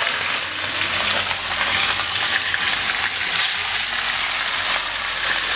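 Whole fish deep-frying in a pan of hot oil: a steady sizzle with fine crackling throughout. A single brief, sharp tick stands out about three and a half seconds in.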